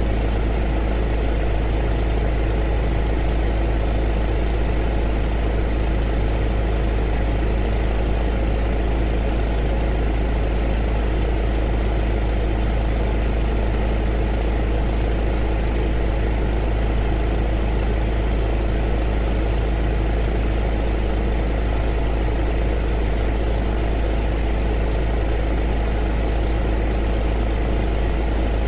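A heater running continuously: a steady deep rumble with a constant hum of several tones under an even rushing hiss, with no change throughout.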